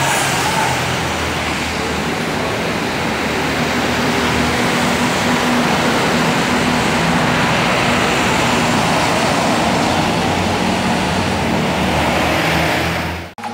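City bus diesel engine running as the bus pulls away close by, over steady road traffic noise. The sound cuts off abruptly near the end.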